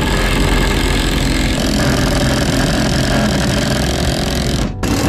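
Ryobi cordless impact driver hammering long concrete screws through a wooden 2x4 brace, running for about four and a half seconds, stopping briefly, then starting again just before the end.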